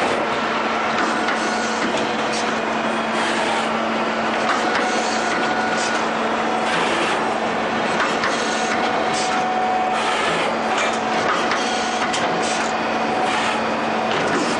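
LPPP1300 roll-forming line running, forming sheet metal into corrugated wall panels: a steady mechanical hum with irregular metallic clicks and rattles as the sheet passes through the forming rolls.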